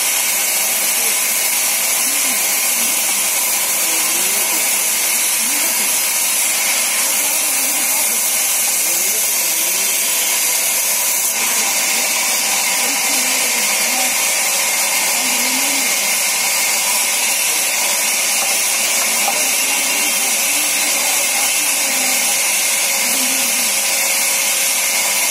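Band saw mill running, its narrow blade ripping lengthwise through a thick log slab: a loud, steady, high hiss that never lets up.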